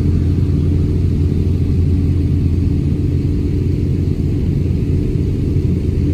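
A car engine running steadily at low revs, a deep, even sound with no revving or change.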